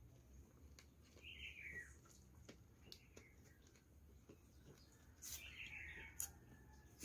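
Near silence, with a few faint bird chirps and scattered small clicks of eating.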